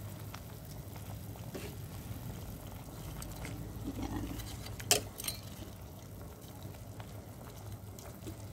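Vinegar pouring into a metal pot of raw chicken, then a metal spatula stirring the chicken pieces, with a sharp clank of the spatula against the pot about five seconds in and a lighter one just after. A steady low hum runs underneath.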